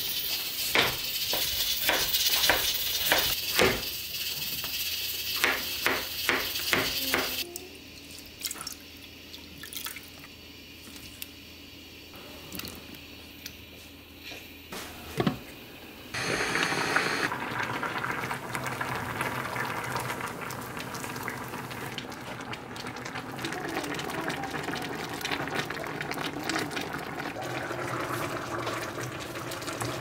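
Chef's knife chopping king oyster mushrooms on a plastic cutting board, a quick run of cuts in the first seconds. After a quieter stretch with a few knocks, a steady sizzling hiss from sliced onions cooking in a lidded electric pot fills the second half.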